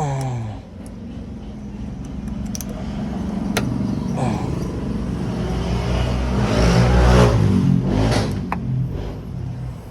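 A motor vehicle's engine running, swelling to a peak about seven seconds in and then fading, with a few sharp metallic clicks.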